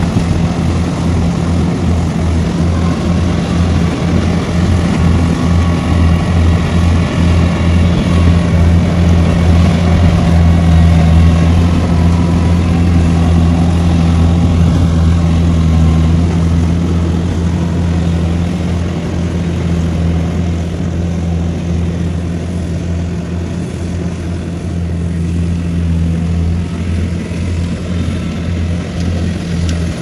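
Kubota rice combine harvester's diesel engine running steadily under load while it cuts and threshes rice, a low drone that grows louder near the middle and eases off toward the end.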